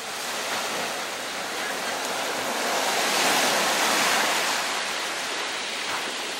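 Small waves breaking and washing up the beach, a steady rush of surf that swells to its loudest about halfway through and then eases.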